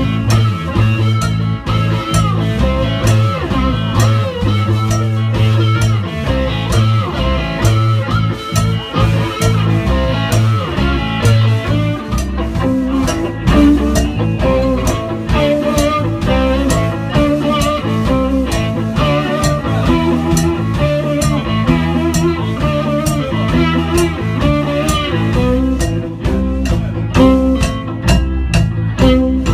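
Live blues band playing an instrumental passage: slide guitar with gliding, bending notes over bass, drums and keyboard.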